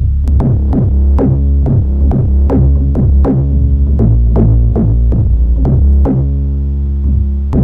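Trap-style beat playing back: a synthesized 808 bass holding long, loud low notes that change pitch, under a steady run of drum-machine hits and short synth notes.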